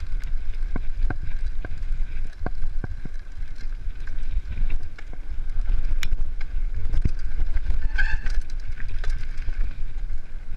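Mountain bike rolling over a dirt forest trail: wind rumbles on the bike-mounted microphone, and the bike rattles and knocks over bumps. There is a brief squeak about eight seconds in.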